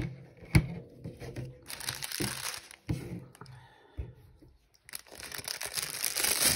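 Clear plastic packaging crinkling and tearing as it is handled and pulled open by hand, loudest in the last couple of seconds. A sharp tap comes about half a second in.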